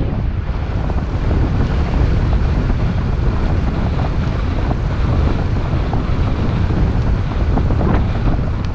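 Wind buffeting the microphone: a loud, steady, rumbling noise.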